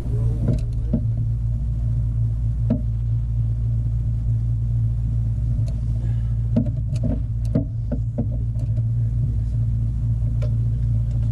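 A steady low motor hum that starts suddenly at the very beginning and holds an even level, with scattered sharp knocks and clicks over it, a cluster of them about two-thirds of the way through.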